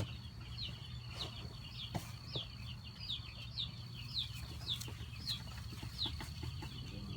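Chickens peeping: many short, high, falling peeps repeated about twice a second, over a faint steady high tone and a low hum.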